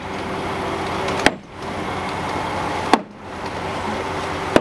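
A motor running steadily, broken about every second and a half by a sharp knock and a brief drop in the running sound before it picks up again.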